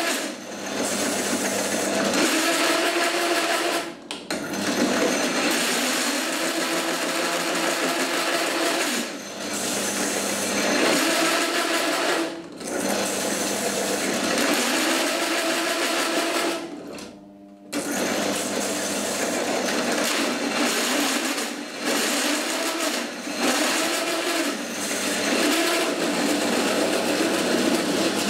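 Small bench pillar drill at low speed cutting a 26 mm hole through 5 mm mild steel plate with a hole saw: a steady motor hum under loud scraping cutting noise. The cutting noise drops away briefly about 4 and 12 seconds in and for about a second at 17 seconds, where the underpowered drill struggles and jams.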